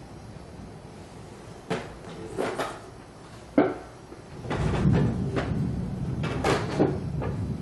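A string of knocks and thumps: single knocks a couple of seconds in, a sharp crack about three and a half seconds in, then a denser run of heavier thuds over a low rumble in the second half.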